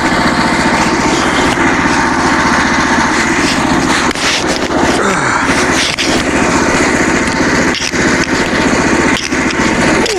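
Engine running steadily at a constant speed.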